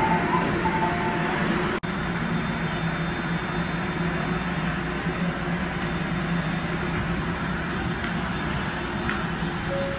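Steady hum and rushing noise of an electric train standing at a station platform, with a brief sharp dropout about two seconds in.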